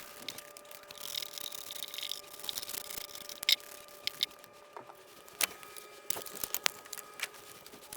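Scattered light clicks and taps of the plastic housing of a small gas leaf blower being handled and cleaned, with a brief hissing scrub of a brush or cleaner spray about a second in.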